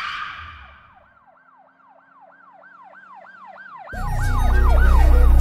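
A whoosh fading out, then a fast yelping siren sound effect, about three wails a second, growing louder; heavy-bass music comes in about four seconds in.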